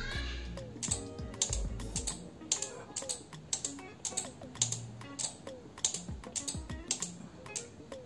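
Small relays in a breadboard latching circuit clicking sharply as their contacts switch, a few irregular clicks a second, while the push button is pressed and released to turn the circuit on and off.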